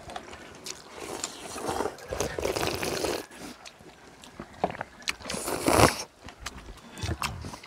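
People eating ramyun noodles: two long slurps, one about two seconds in and a louder one near six seconds, with small clicks of chopsticks and chewing between.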